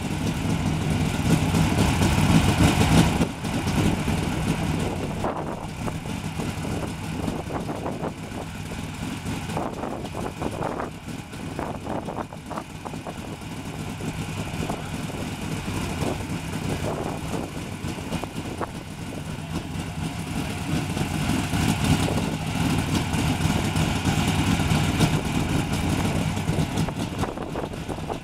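An engine idling steadily. It is loudest for the first three seconds and drops off sharply, then swells again later on. A few light knocks sound in the middle.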